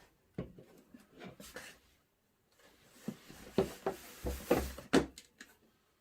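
Handling noise from rummaging through a mystery box of toys: scattered clicks and knocks, then a busier stretch of rustling with several louder knocks and dull thuds about halfway through.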